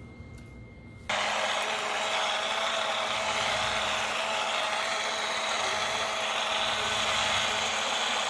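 Pinsoon battery-powered portable blender switching on about a second in and running steadily, its motor and blades whirring at a constant pitch as it blends a thick berry smoothie.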